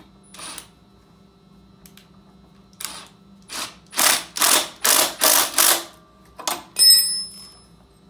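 Cordless power driver run in a string of short trigger bursts, about five in quick succession from about four seconds in, turning a bolt on the minibike's engine mount while the chain tension is set. A sharp metallic clink with a brief high ring comes near the end.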